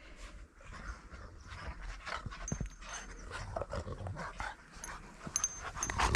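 Dogs panting.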